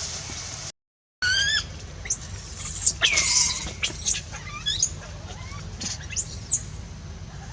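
A young monkey screaming: a run of high, arching squeals starting about a second in, after a brief drop to silence, the loudest and longest near the middle.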